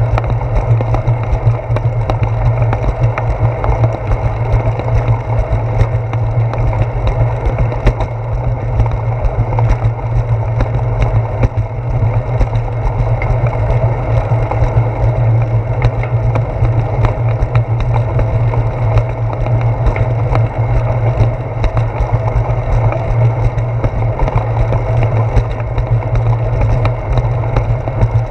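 Bicycle rolling over a concrete sidewalk, heard through a handlebar-mounted GoPro: a steady low rumble of tyre and handlebar vibration with frequent small rattles and knocks.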